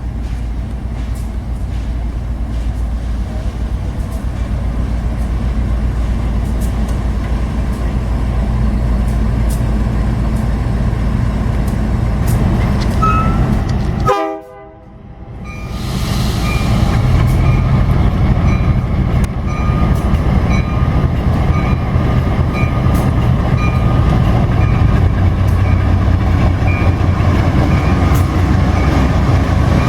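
Passing diesel-hauled freight train: locomotive engines and rolling wagons in a steady low rumble. The sound cuts out abruptly about halfway through, then comes back louder with a few steady higher tones over the rumble.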